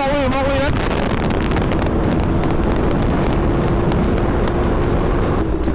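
Honda CBR650F's inline-four engine running steadily under heavy wind rush while riding, with a brief wavering tone at the start.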